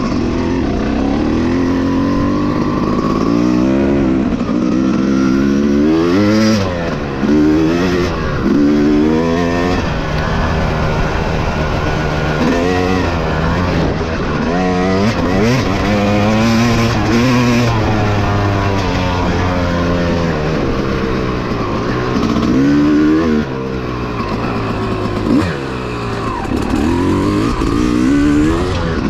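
Dirt bike engine ridden hard, its pitch climbing again and again as the throttle opens and dropping back between pulls, with short lifts off the throttle a few times.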